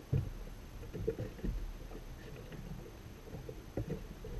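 Irregular dull knocks and bumps on a small inflatable boat as a person moves about and handles fishing gear aboard, the strongest just after the start.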